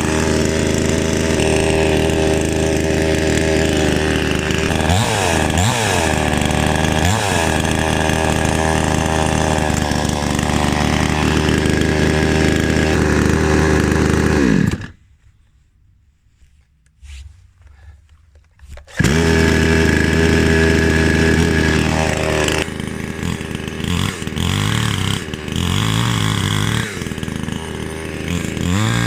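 Flinke FK 9600 two-stroke petrol chainsaw running at high revs, its pitch dipping and recovering several times. About halfway through the sound cuts out abruptly for about four seconds, then the saw runs again with its pitch wavering and rising near the end.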